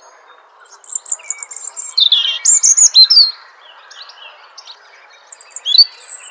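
A small bird chirping in quick, high-pitched trills: a run of calls from about half a second in, a quieter gap, then another run near the end, over a faint steady background hiss.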